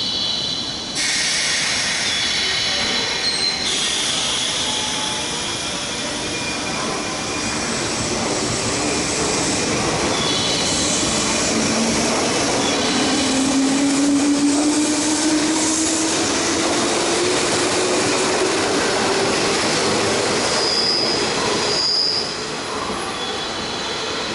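JR 201 series electric train pulling out of the station and running past, its motors giving a low tone that rises steadily in pitch as it gathers speed. High-pitched wheel squeal comes and goes over the rail noise.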